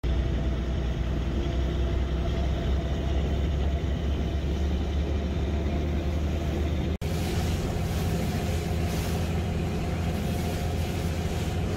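Boat engine running steadily under way, a low drone. It breaks off abruptly about seven seconds in and resumes with a brighter hiss over it.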